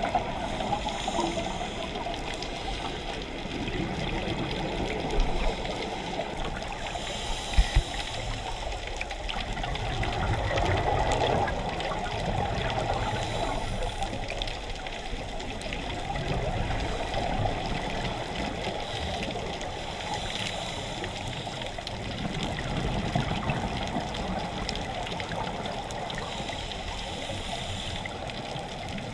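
Muffled underwater noise picked up by a camera in its waterproof housing, with a rush of scuba exhaust bubbles about every six to seven seconds as a diver breathes out through the regulator. Two brief knocks about five and seven seconds in.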